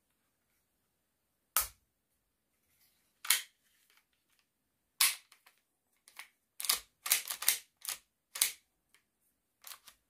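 Sharp metal and plastic clicks and clacks of a Hi-Capa 5.1 airsoft pistol's slide being worked by hand: three single clacks a second or two apart, then a quick run of clicks about two-thirds of the way in, and one more near the end.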